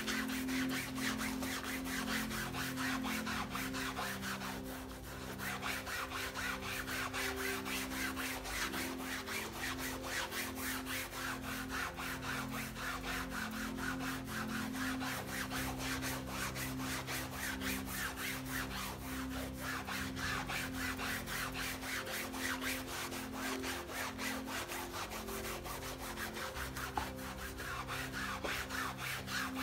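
Sponge scrubbing a wet, soapy fabric mouse pad in quick back-and-forth strokes: a steady, rhythmic wet rubbing, with a brief let-up about five seconds in.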